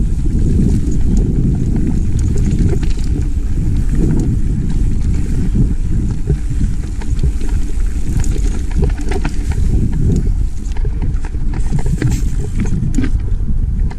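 Mountain bike riding down a rocky dirt singletrack: a steady, heavy low rumble from the tyres on the trail and wind on the microphone, with sharp clicks and rattles as the bike strikes stones, coming thicker in the last few seconds.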